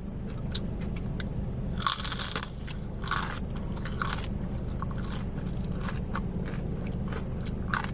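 Close-up chewing of crispy fried cream cheese rangoons. There are loud crunches about two and three seconds in, then steady chewing with small crackly clicks.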